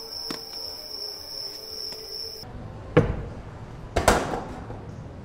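Steady chirping of crickets, with a faint musical tone beneath, that cuts off abruptly about halfway through. Then two sharp knocks about a second apart.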